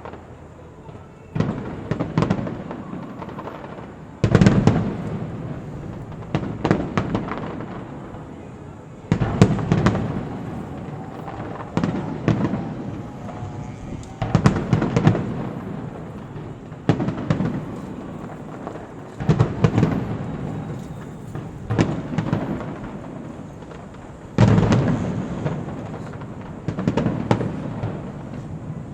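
Fireworks display: aerial shells bursting one after another every two to three seconds, each sharp bang followed by crackling that fades.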